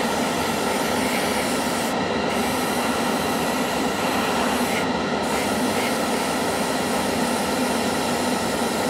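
Airbrush spraying paint: a steady hiss of air, with the spray cut briefly twice, about two seconds in and again about five seconds in.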